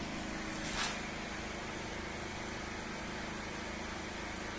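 Nissan X-Trail's 2.0 dCi diesel engine, newly replaced after a connecting-rod failure, idling steadily, with one brief light click about a second in.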